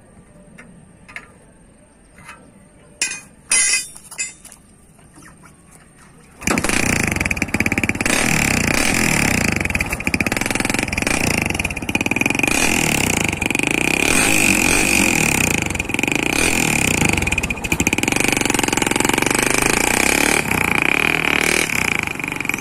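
A few short knocks, then about six seconds in a Kawasaki Barako motorcycle-tricycle engine starts and runs loudly as it pulls away. Its exhaust is a DIY 'chicken pipe', a pipe driven into the muffler through its broken baffles to give a crisp, crackling exhaust note.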